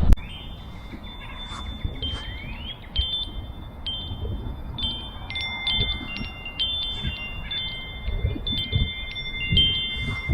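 Wind chimes ringing, several high tones struck one after another and overlapping. A sharp knock comes right at the start.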